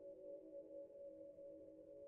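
Faint ambient drone: several steady tones held together, with no change in pitch or rhythm.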